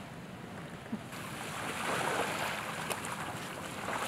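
Steady rushing of small waves on a lagoon beach, growing louder about a second in.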